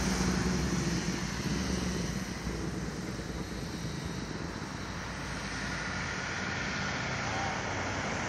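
Eight-rotor RC camera multicopter's propeller hum fading over the first couple of seconds as it flies away, leaving a steady background rush of road traffic.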